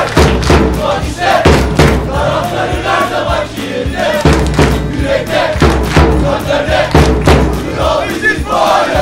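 Football supporters' crowd chanting in unison, with hand claps or beats cutting through the singing.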